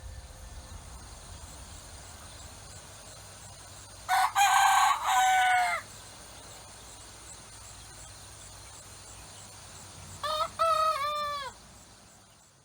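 A rooster crowing twice, the first crow about four seconds in and the second, shorter one about ten seconds in, over a faint steady hiss.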